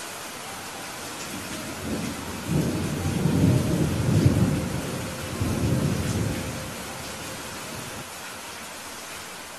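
Steady rain hiss with a rolling rumble of thunder that builds from about a second and a half in, swells twice and dies away by about seven seconds.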